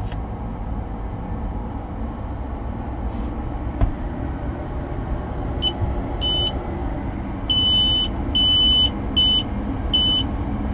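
New Holland T7.315 tractor engine idling with a steady low hum, heard from inside the cab. About halfway through, the cab monitors start a run of about six high electronic beeps of uneven length as they come on.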